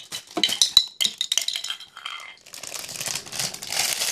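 Hard plastic Lego Duplo pieces clicking and clattering against each other and a tile floor, a quick run of sharp clinks over the first two seconds, then a steady rustling.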